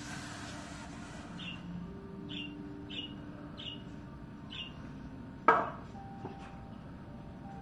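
Budgerigars in a nest box giving short, high chirps about once a second. About three-quarters of the way through comes a single sharp knock, the loudest sound.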